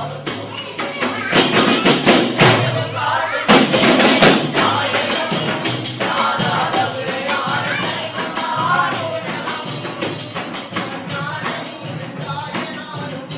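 Men singing a Sufi devotional song in chorus to hand-beaten frame drums (daf). A run of loud drum strikes dominates the first few seconds, then the voices come through over a steady drum beat.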